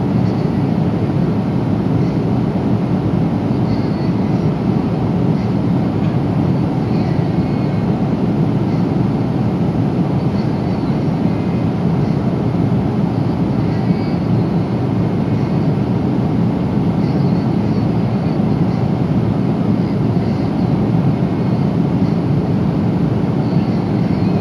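Steady cabin noise inside a Boeing 777-300 airliner at cruise: a constant deep rush of airflow and engine noise, even throughout.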